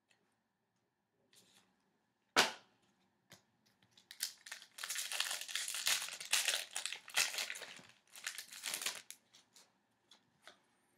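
A hockey card pack wrapper being torn open and crinkled, a dense run of irregular rustling in the middle of the stretch, preceded by a single sharp click a little over two seconds in.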